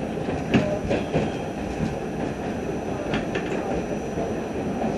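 R68 subway car running along the track: a steady rumble of wheels on rail, broken by sharp clicks of the wheels over the track, several about a second in and a pair just past three seconds.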